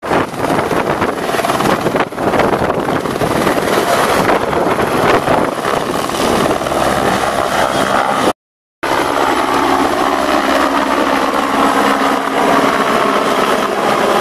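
Helicopter rotor and engine running steadily as it lifts off and climbs away. The sound cuts out briefly about eight seconds in, then comes back as a steadier whine with a hum beneath.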